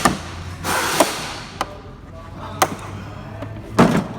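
Metal toolbox drawers being closed and opened: several sharp clunks, with a short sliding rush about a second in.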